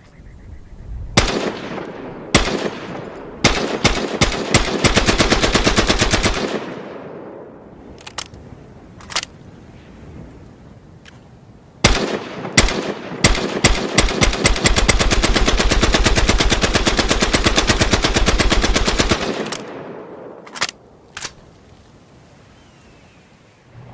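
Lewis gun light machine gun firing: a few single shots, then a burst of about two seconds; after a pause, more single shots and a longer burst of about six seconds, then two last shots near the end. Each burst leaves an echoing tail.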